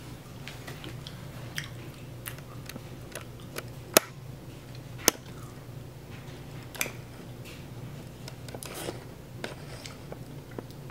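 A cotton T-shirt handled and held up close, with soft fabric rustles and a few sharp clicks, the loudest about four and five seconds in, over a steady low hum.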